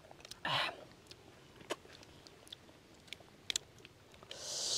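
Close mouth sounds of someone eating tamarind dipped in chili: chewing with scattered sharp clicks, a short noisy rush about half a second in and a longer one building near the end.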